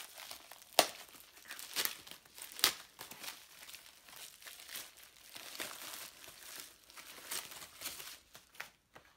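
Plastic packaging crinkling and rustling as it is handled and unwrapped, with sharper crackles at about one, two and three seconds in.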